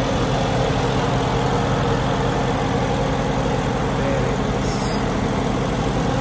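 Mercedes-AMG GT C's 4.0-litre twin-turbo V8 idling steadily, heard with the hood open.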